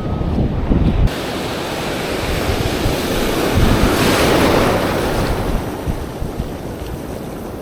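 Ocean surf on a beach: a wave breaks and washes in, swelling about four seconds in and then fading away, with wind buffeting the microphone during the first second.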